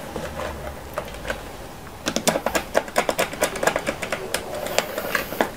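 Quick irregular clicking and ticking as a wire is fitted into a miniature circuit breaker's screw terminal and the terminal is worked by hand. The clicks start about two seconds in.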